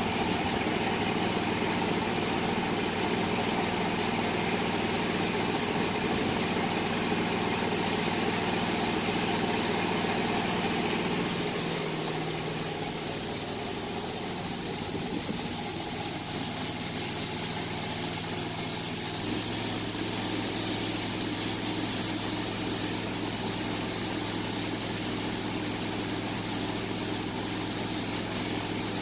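Steady drone of an air compressor running to feed a paint spray gun, with the hiss of the gun spraying paint on top. The drone's pitch shifts twice, about halfway through and again about two-thirds of the way through.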